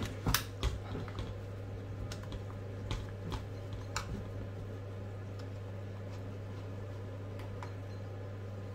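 Scattered small clicks and taps of a hex driver and metal parts being handled on a plastic RC truck chassis, mostly in the first four seconds, over a steady low hum.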